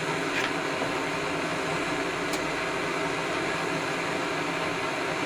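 Electric induction furnace running, a steady fan-like whir and hiss.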